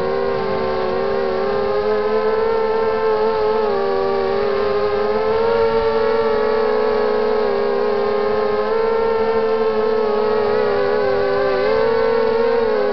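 Emax 2300kv brushless motors and propellers of a QAV250-clone 250-size racing quadcopter whining in flight, the pitch wavering up and down with throttle, heard close from the camera on the quad.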